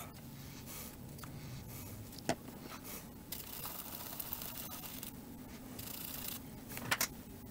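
Faint scratching and light taps of multimeter probes being placed on the pads of a keyboard's circuit board, with a sharp click about two seconds in and two more near the end, over a low steady hum.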